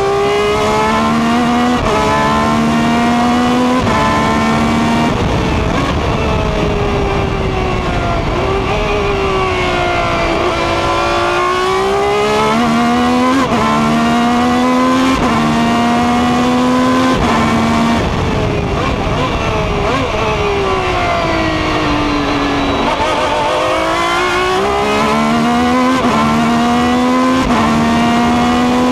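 Ferrari 333 SP's 4.0-litre V12 at race pace, heard from the cockpit: it climbs through the gears with quick upshifts, falls in pitch through downshifts under braking twice, about ten seconds apart, and climbs through the gears again after each.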